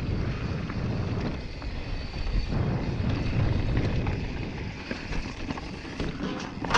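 Wind buffeting the camera microphone over the rumble of a Yeti SB5 mountain bike's tyres rolling down a dirt singletrack, with small clicks and rattles. Near the end a single sharp clack as the front wheel hits a metal cattle guard.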